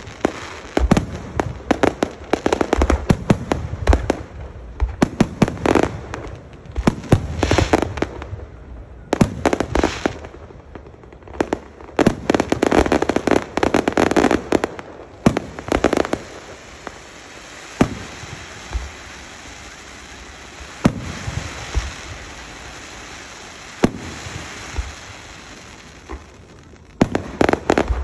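Aerial fireworks going off in rapid volleys of bangs and crackle, with a thinner stretch of scattered single bangs over fizzing crackle in the second half before a dense cluster again near the end.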